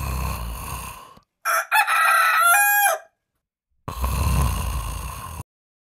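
A rooster crowing once, a stepped call about a second and a half long and the loudest sound here. Short stretches of steady low background noise come before and after it.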